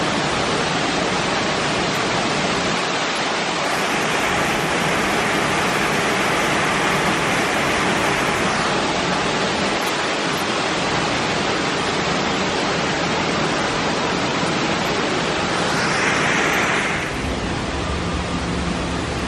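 Steady rushing of running water, like a small waterfall or stream. A low hum joins in near the end.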